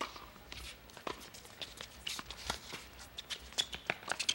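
Tennis rally on a hard court: an irregular run of sharp clicks and knocks from rackets striking the ball and the ball bouncing, mixed with players' quick footsteps, coming thicker in the second half.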